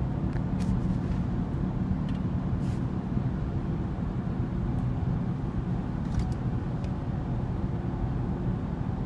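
Steady low rumble of engine and tyre noise heard inside a Honda car's cabin while it cruises at a constant speed of about 50 km/h.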